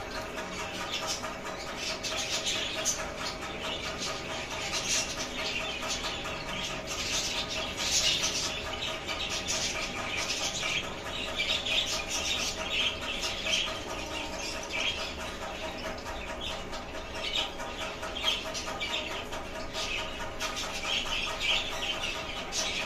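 Birds chirping and chattering throughout, many short high calls overlapping in a steady stream.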